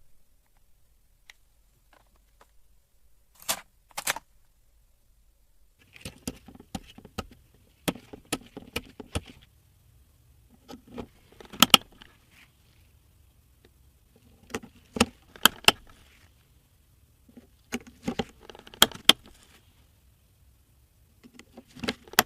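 PC parts and their packaging being handled: clusters of sharp clicks, taps and rustles every few seconds, with quiet gaps between.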